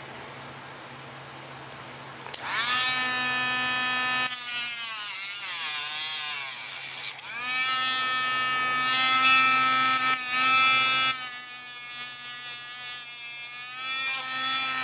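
Dremel rotary tool motor whining at high speed against a carbon fiber rod, starting about two seconds in. Its pitch sags and wavers for a few seconds before it comes back up to speed and keeps running.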